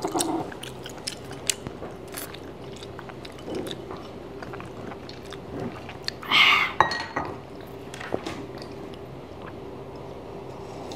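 Spoons clinking and scraping against ceramic bowls and a clay pot of soup, with quiet chewing, over a faint steady hum. One louder slurp of soup comes about six and a half seconds in.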